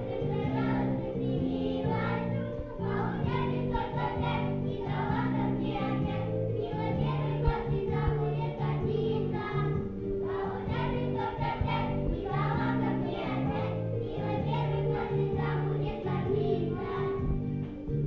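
Music with voices singing over an accompaniment of held low notes that change in steps.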